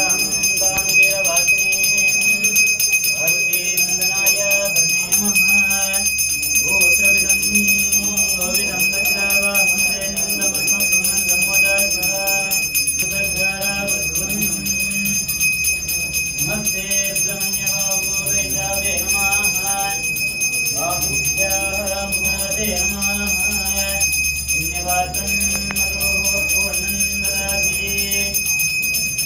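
Temple bell rung without pause during a lamp offering (aarti), a steady high ringing of several tones, with devotional music or chanting under it.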